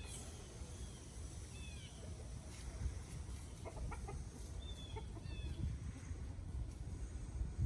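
Young buff Brahma rooster clucking, a short cluster of calls about four seconds in, with short high falling chirps scattered through and a steady low rumble underneath.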